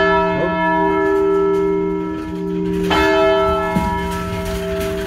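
Church clock's great hour bell striking the hour at close range: loud single strokes about three seconds apart, one just before the start and the next about three seconds in, each ringing on with a long, many-toned hum.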